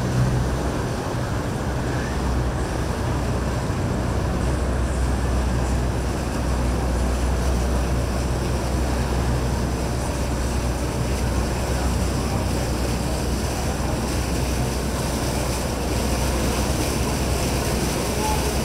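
Motorboat engine running steadily with a low hum as the boat cruises past, over the wash of its bow wake on the water.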